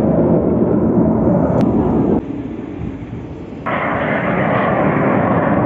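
Display jet aircraft flying past with a loud, steady roar. The roar drops off abruptly about two seconds in and cuts back in just as suddenly about a second and a half later.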